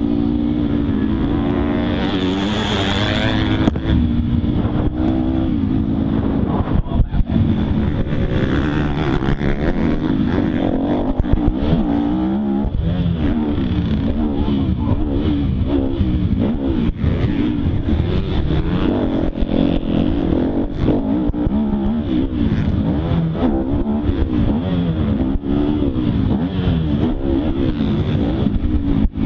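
Motocross dirt bike engine heard from the rider's helmet, revving up and dropping off again and again as it accelerates, shifts and slows through the track's corners and jumps.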